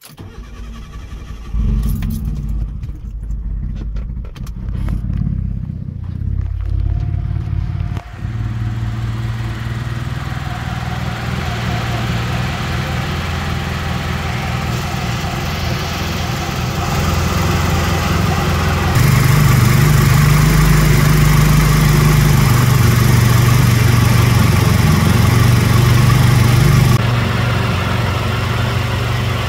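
Turbocharged car engine cranked by the starter and catching within about a second and a half, then running steadily on its first start after a new turbo oil feed line was fitted. It runs louder for several seconds in the second half, then settles back.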